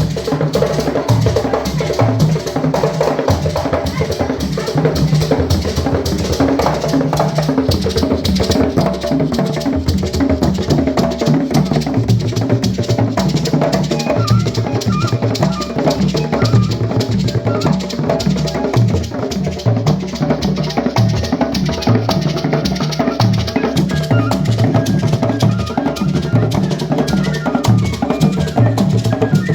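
Traditional African drum music: several drums playing a dense, steady rhythm, with low pitched notes shifting underneath.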